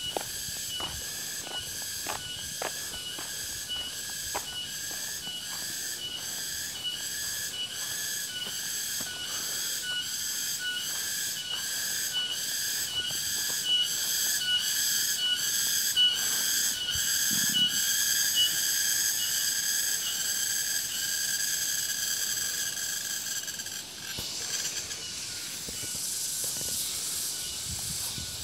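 Cicada calling: a high-pitched buzz pulsing about twice a second. Near two-thirds of the way through it runs into one continuous buzz, then cuts off suddenly.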